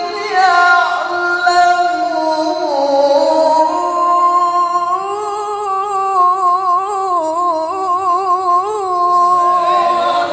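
A male Quran reciter chanting tilawah in a melodic, sung style into a microphone. He draws out long held notes, and in the second half of the phrase adds rapid wavering ornaments before the note ends just before the close.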